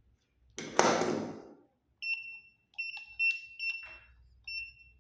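Novalock smart lock's electronic beeper giving five short high beeps, the first a little longer, with small clicks among them. A brief loud clatter comes about half a second before the beeps.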